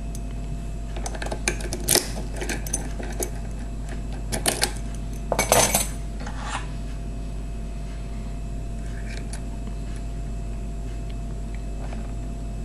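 Metal clicks and clinks of a Vachette VRX euro cylinder and its key being handled, a quick run of them in the first half with the loudest cluster about five and a half seconds in. A steady low hum runs underneath.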